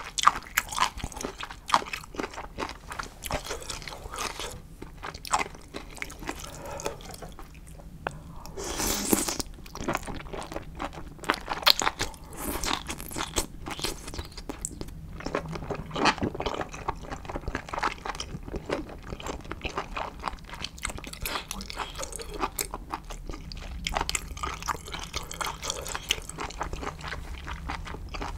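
Close-miked eating of spicy instant ramyeon noodles: steady chewing with many small wet clicks and crunches, and a longer, louder mouth sound about nine seconds in.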